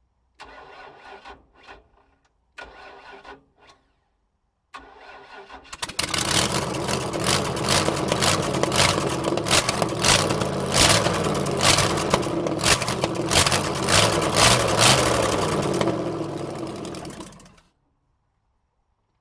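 Ford/Lincoln 460 V8 with no headers, its exhaust open at the ports, cranked by the starter in three short bursts, catching on the third about six seconds in. It runs very loud with sharp exhaust cracks for about twelve seconds, then dies away and stops. This is its first start of the season.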